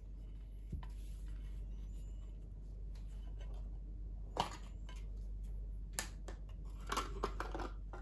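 Small handling sounds at a table: a few sharp clicks and knocks of a knife, a plastic cheese tub and a wooden tray, the loudest about halfway through, then a short crinkling of a plastic bag near the end, over a low steady hum.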